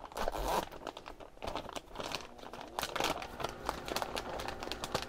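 New parts packaging being torn open and crinkled by hand, an irregular crackling rustle with louder bursts about a quarter second in and again around three seconds in.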